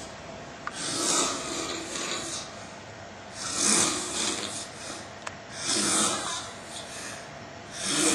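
Snoring: four noisy breaths, roughly two seconds apart, each rising and falling.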